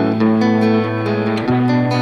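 Background music led by guitar, with held chords that change about one and a half seconds in.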